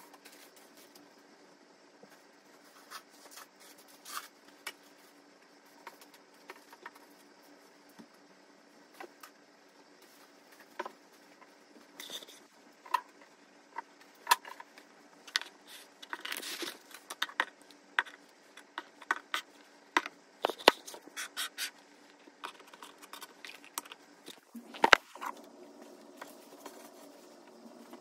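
Household objects being handled while tidying a room: scattered knocks, scrapes and rustles, thickest in a rustling patch past the middle, with a sharper knock near the end, over a faint steady hum.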